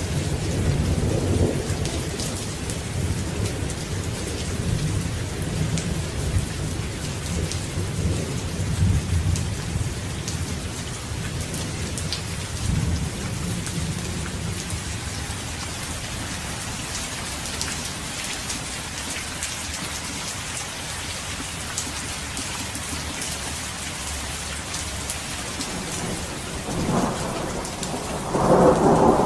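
Steady heavy rain with thunder: low rolling rumbles through the first half, fading, then a louder thunderclap building in the last couple of seconds.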